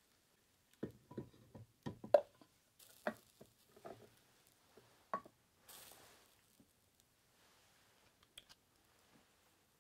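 Ceramic sake ware being handled: a run of sharp clinks and knocks as a ceramic sake flask and an earthenware kettle are set down and fitted together, the loudest knock about two seconds in. Two short soft hisses follow, and a couple of faint ticks come near the end.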